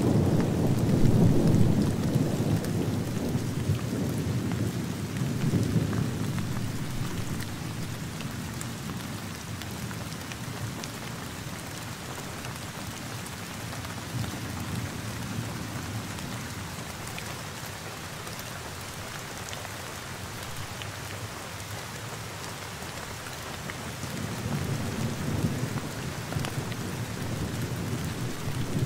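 Steady rain with low rolls of thunder, the rumble strongest in the first couple of seconds, swelling again around six seconds in and building once more near the end.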